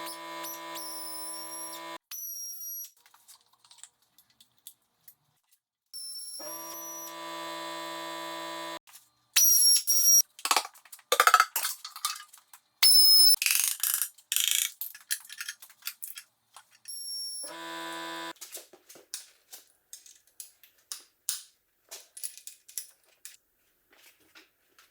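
A power tool's motor runs in three short steady bursts with an even buzzing pitch, and a stretch of loud, rapid metallic clicks and impacts sits between them.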